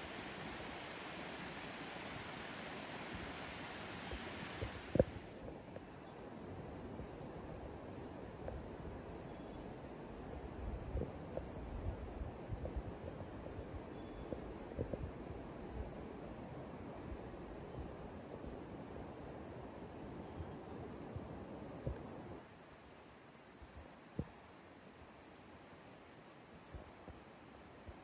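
Cloud-forest ambience: a broad hiss that gives way about five seconds in to a steady, high-pitched insect drone, with scattered faint ticks and knocks underneath.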